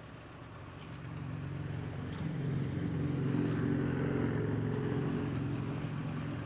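Engine of a motor vehicle on the street passing by, a low steady hum that grows louder over the first few seconds, is loudest around the middle, then eases slightly.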